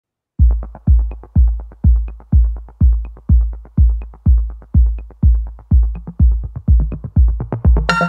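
Electronic dance music. After a moment of silence a kick drum starts, beating about twice a second with hi-hats between. A bass line joins about six seconds in, and synth chords come in near the end.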